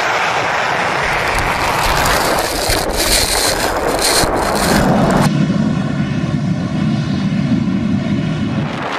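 Airplane engines running at high power, a loud rushing blast. About five seconds in the sound changes abruptly to a steadier engine drone with a humming tone in it.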